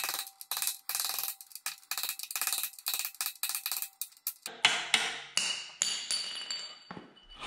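Steel hammer blows on the seized auger bearing and shaft of a snow blower auger, about three a second with a metallic ring, knocking off a bearing that has broken apart on the shaft. After about four and a half seconds the hammering stops and scraping, clinking metal follows.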